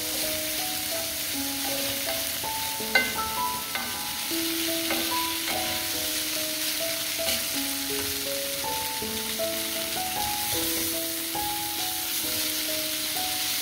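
Crumbled tofu and diced vegetables sizzling in a cast-iron pan as a wooden spatula stirs them, with one sharp knock about three seconds in. Background piano-style music plays over it.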